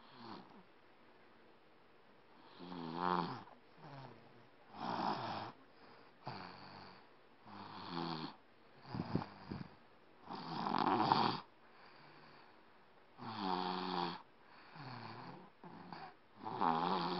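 A seven-year-old child snoring in sleep: a steady rhythm of rough, snoring breaths, with a louder snore every two to three seconds and softer breaths between.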